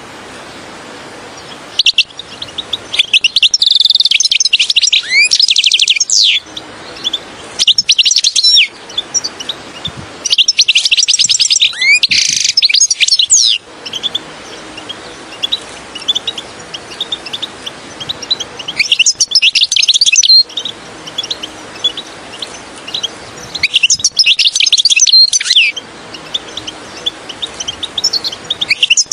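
European goldfinch singing: about five bursts of fast, twittering chirps and trills, a second or three long, separated by pauses. A steady hiss runs under the song between phrases.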